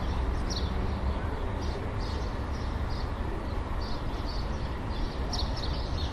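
City ambience: a steady low rumble of distant traffic with small birds chirping over it, two or three short chirps a second.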